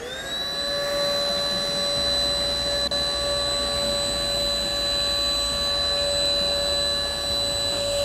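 Ingco 20V cordless handheld vacuum cleaner spinning up, its motor whine rising and settling within the first moment to a steady high pitch. It then runs steadily as it sucks planer shavings off a concrete floor.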